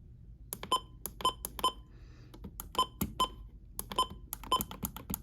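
Irregular sharp clicks in short runs of two to four, each with a brief ringing tone.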